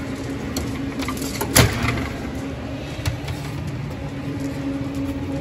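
Steady hum of a running soda vending machine, with one sharp knock about a second and a half in and a few lighter clicks.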